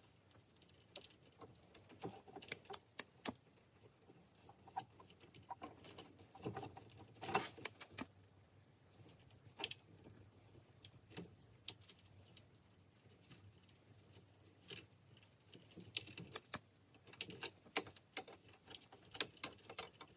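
Scattered small clicks, taps and rustles of hands working wires and heat-shrink tubing, irregular and fairly quiet, with busier clusters near the start, in the middle and towards the end.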